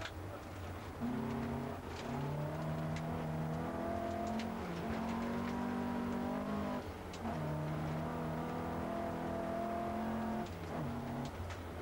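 Opel Ascona A rally car's four-cylinder engine, heard from inside the cabin, pulling hard under full throttle and rising in pitch. It is cut by brief lifts at the gear changes, about a second in, near seven seconds and near ten and a half seconds, each time picking up again at a lower pitch after an upshift through the standard gearbox. Scattered sharp clicks run through it.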